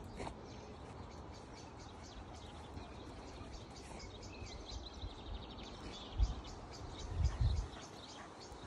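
Small songbirds singing, with rapid runs of short high chirps and trills. A few low thumps come about six and seven seconds in.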